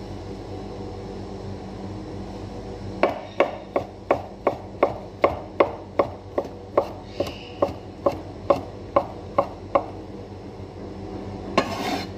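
Kitchen knife chopping cooked chicken on a wooden cutting board: about eighteen even, sharp knocks, roughly two and a half a second. They start about three seconds in and stop near ten seconds. A brief rustling noise comes near the end.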